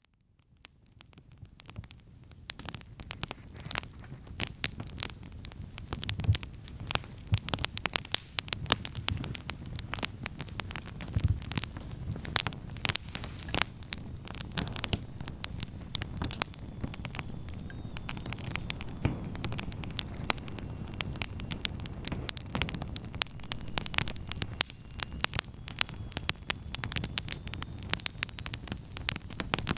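Wood campfire crackling: many sharp pops and snaps over the low, steady rush of the flames, fading in from silence in the first couple of seconds.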